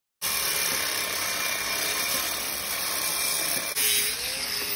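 Steady, hissing power-tool noise. Near the end it changes abruptly to an angle grinder cutting into the base of a stainless-steel pool handrail, with a tone rising in pitch.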